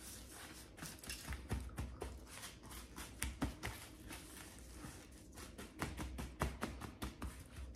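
Gloved hands rubbing and pressing a salt-and-spice cure into a raw salmon fillet in a plastic container: a faint, irregular run of soft clicks, pats and rustles.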